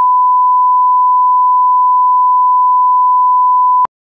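Loud, steady 1 kHz line-up test tone played with the colour bars, cutting off abruptly near the end.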